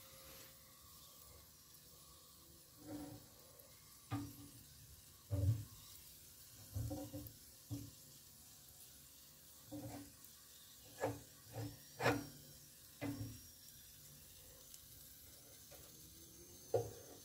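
Metal kebab skewers knocking and clinking against the grill rack as they are turned by hand over charcoal: a dozen or so short knocks at irregular intervals, some with a brief metallic ring.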